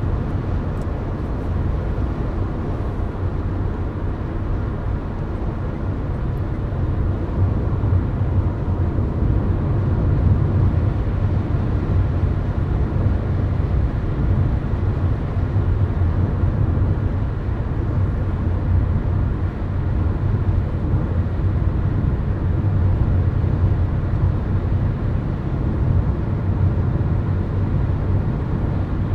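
Steady highway driving noise heard inside a car: a low tyre-and-engine rumble at cruising speed, a little louder after the first several seconds.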